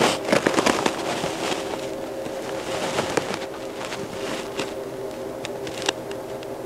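Crackling clicks and scrapes of 3D-printed plastic heart models being handled and turned in the hands, dense in the first second and then scattered, with a sharper click near the end, over a steady low hum.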